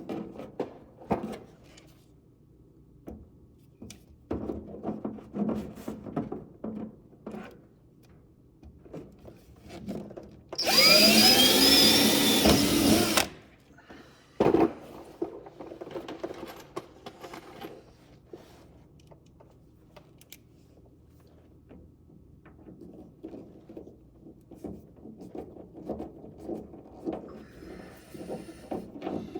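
Handheld power drill running for about two and a half seconds near the middle, its pitch rising as it speeds up, drilling a hole in the car's body. Faint knocks and rattles of parts being handled come before and after.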